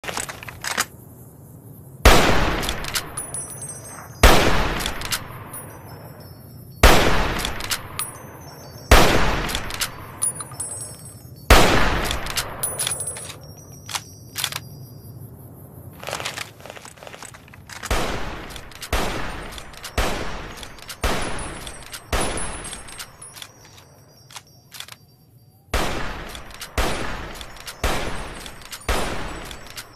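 Hunting rifle shots, one sharp crack at a time, each trailing off in a long echo. They come about two seconds apart at first, then more often, about one a second, in the second half.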